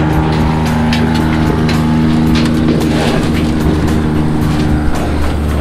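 John Deere Gator utility vehicle's engine running at a steady, even speed, with scattered light clicks and knocks over it.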